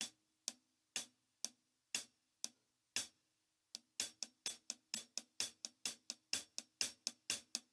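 Hi-hat played with a drumstick, mixing soft strokes from the stick's tip with louder accented strokes from the stick's neck. The strokes come about two a second, with every other one accented, then stop briefly about three seconds in. After that a faster run of about four strokes a second follows.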